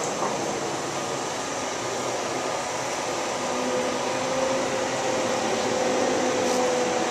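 Crane engine running steadily under load as it hoists a prefab house module, with a steady hum that strengthens about halfway through.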